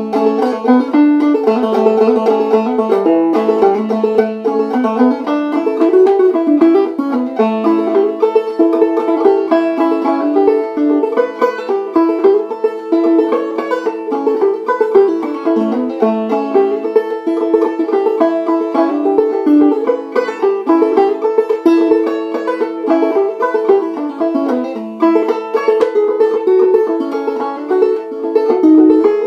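Five-string banjo played clawhammer style: a fast, unbroken run of plucked notes carrying an old-time fiddle-tune melody.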